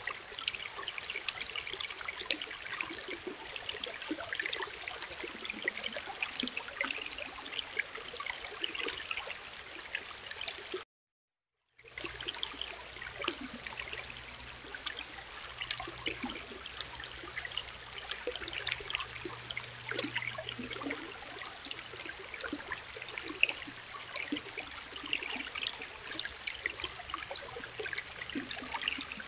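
Stream water babbling and trickling over rocks, steady throughout. About 11 seconds in it cuts to a second of silence, then resumes with a faint low hum underneath.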